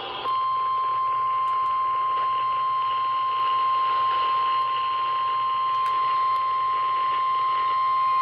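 NOAA Weather Radio 1050 Hz warning alarm tone heard through a weather-radio receiver. It is one steady, unwavering high tone over radio hiss, starting just after the opening, and it signals that a warning message is about to be broadcast.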